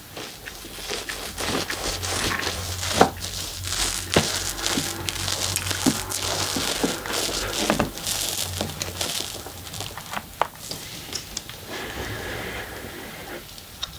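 Knife slicing down through the many thin layers of a chocolate crepe cake: soft crinkling and squishing, broken by scattered sharp clicks.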